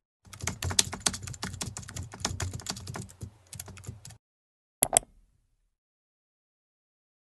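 Rapid computer keyboard typing for about four seconds, then a quick double click, like a mouse button.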